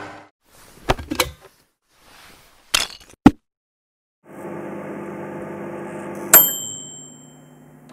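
A few sharp clicks and knocks, then a microwave oven running with a steady hum for about two seconds. A bell dings as the cycle ends, and the hum dies away.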